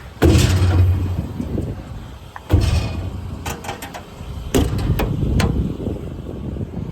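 Metal compartment doors on a truck's service body being opened and shut: three heavy thuds, about two seconds apart, with sharp latch clicks between them.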